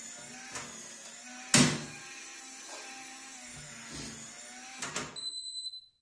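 SwitchBot smart lock's motor whirring as it turns the door's thumb turn to lock it during calibration, with a sharp click about one and a half seconds in and a few lighter clicks. It ends with a short high beep near the end as the lock confirms.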